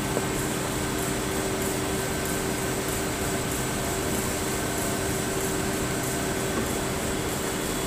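Steady hum of workshop machinery and ventilation: a constant hiss with several fixed hum tones. There are a couple of faint knocks as the laminated board panels are handled.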